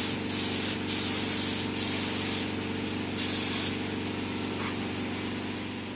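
Gravity-feed air spray gun spraying thinned enamel paint: a hiss of air and atomised paint that swells in several short spells in the first three and a half seconds, then stays fainter. A steady low machine hum runs underneath.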